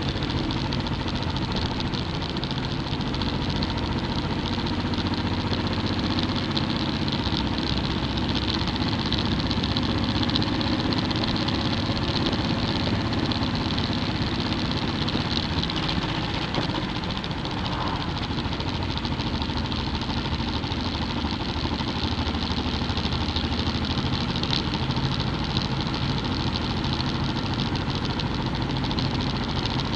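Motorcycle engine running at a steady cruise, heard from the bike itself, under a continuous rush of wind and road noise.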